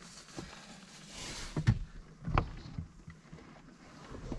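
Rain and wind on a parked car, heard from inside the cabin: a steady hiss of rain that swells about a second in, with a couple of sharp taps.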